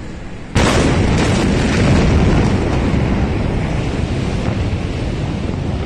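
About half a second in, a sudden, loud, steady rush and rumble begins: the blast noise of a massive ammonium nitrate explosion.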